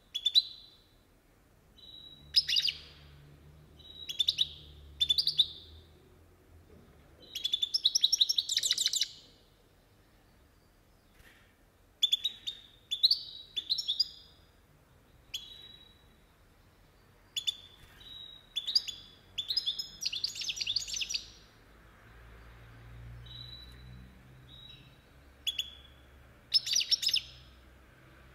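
European goldfinch (carduelis) singing in a cage: short phrases of quick twittering notes with pauses between them, a long loud phrase about eight seconds in and more near the end.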